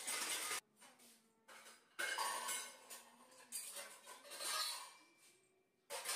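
Stainless steel vessels and utensils clinking and clattering as they are handled and set into a wire dish rack, in several separate bursts, some leaving a brief metallic ring.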